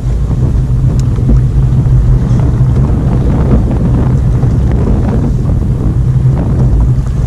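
Wind buffeting the action camera's microphone on open water: a loud, steady low rumble.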